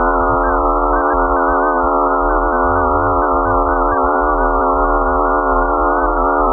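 Loud synthesized drone: a dense cluster of many steady tones held without change, over a low rumble.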